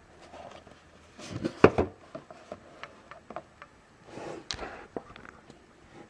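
Hands handling a cardboard figure box: rustling and knocks in two clusters, the loudest about a second and a half in, and another group with a sharp knock about four and a half seconds in as the box is set down on a wooden tabletop.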